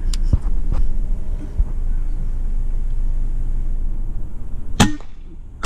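A single air rifle shot, one sharp crack near the end, over a steady low rumble.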